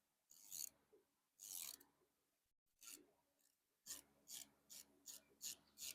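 Faint, short rasping strokes, a few scattered at first and then coming regularly about three times a second from about four seconds in.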